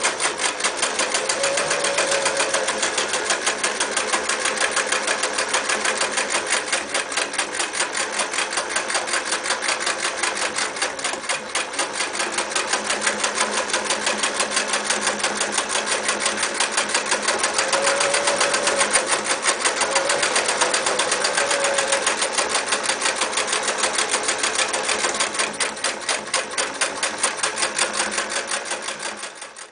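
Singer 315K electric sewing machine running at speed, its needle and mechanism making a fast, even clatter of stitches. It slows and stops near the end.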